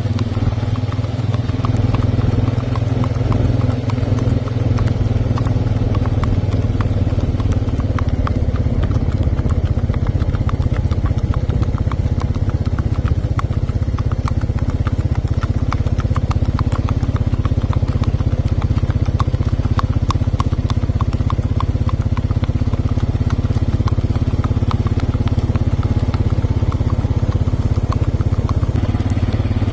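Steady engine hum from a vehicle pacing alongside, with the regular clip-clop of a Missouri Fox Trotter mare's hooves on asphalt.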